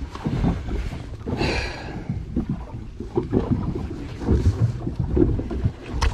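Boat noise at sea: an uneven low rumble with irregular knocks, wind buffeting the microphone, and a brief hiss about a second and a half in.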